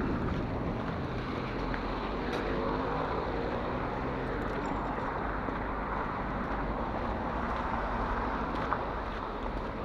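Car driving along a wet, slushy street: steady tyre hiss and road noise over a low engine rumble, with a faint rising note a few seconds in.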